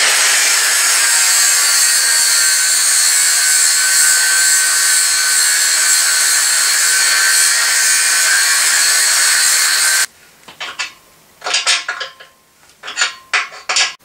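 Angle grinder grinding steel on a grooved drive pulley's shaft, a loud steady grind that cuts off suddenly about ten seconds in, followed by several short bursts.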